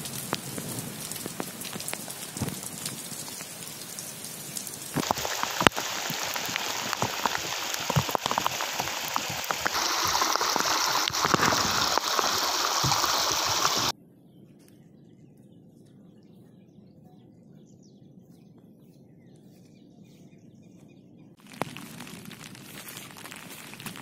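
Rain falling and shallow rainwater running and splashing over a low rock ledge, a steady hiss that grows louder about five seconds in, drops to a faint hush a little past halfway, and rises again near the end.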